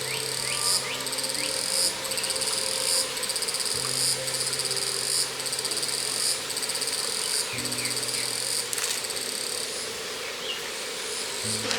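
Insects chirping in a steady rhythm of high, pulsing trills, about one a second, each lasting close to a second, which grow fainter near the end.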